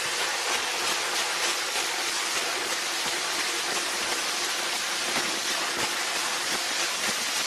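Water spraying and churning in a steady, even rush.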